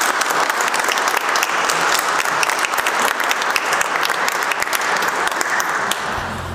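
Audience applauding, many hands clapping together, easing off near the end.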